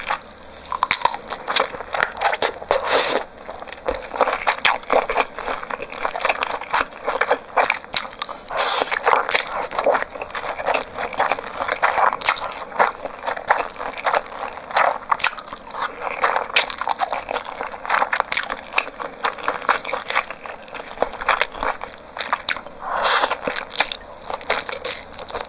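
Close-miked eating sounds of a person chewing and slurping noodles: a dense, continuous run of wet mouth clicks, smacks and crisp bites.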